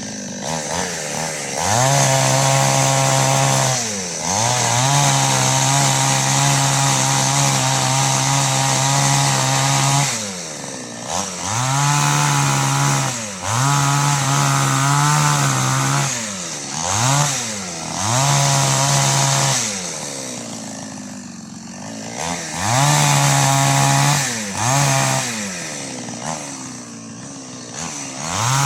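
An 18-inch Preco two-stroke chainsaw revved to full throttle in repeated bursts, each holding steady for one to several seconds before the engine drops back toward idle and revs up again. The longest run is about five seconds, a few seconds in, and it settles to a quieter idle for a couple of seconds past the middle.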